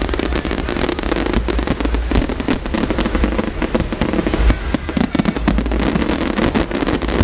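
Aerial fireworks display going off without pause: a dense run of rapid bangs and crackling over deep booms.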